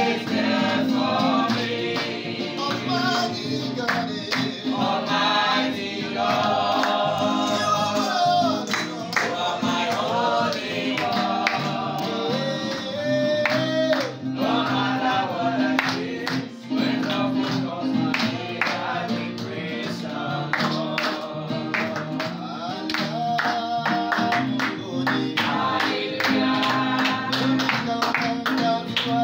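A small group singing a gospel worship song together to an acoustic guitar, with hand clapping kept up throughout.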